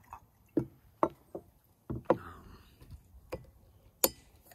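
Wood fire crackling: about eight sharp, irregular pops and cracks, the loudest about a second in and near the end.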